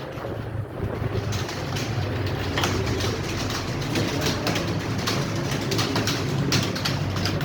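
Many computer keyboards being typed on at once during a timed typing test: a dense, continuous clatter of key clicks over a steady low hum.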